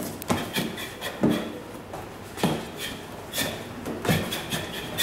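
Sneakered footsteps landing on a plastic aerobic step and a rubber gym floor during boxing footwork, a thud roughly once a second, with short shoe squeaks between.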